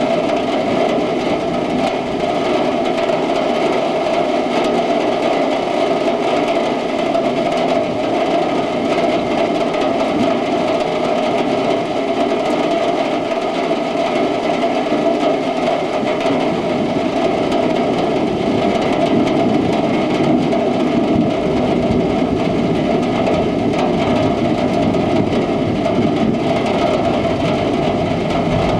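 Heavy rain falling: a steady, dense hiss with no breaks.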